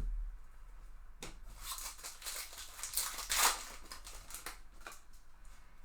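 Chrome trading cards and their pack wrapping being handled: rustling and sliding swishes with a few soft clicks, loudest about three and a half seconds in.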